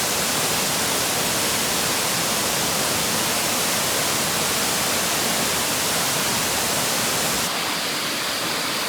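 Waterfall: a steady, loud rush of falling water with no break. It drops a little in level near the end.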